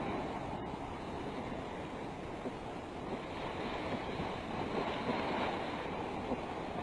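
Steady rushing noise of wind and water, without distinct events.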